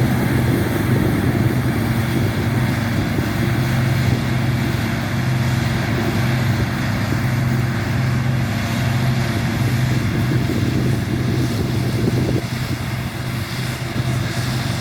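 New Holland TX36 combine harvester running steadily, a constant low engine hum with a wide machinery rush over it. It gets a little quieter about twelve seconds in.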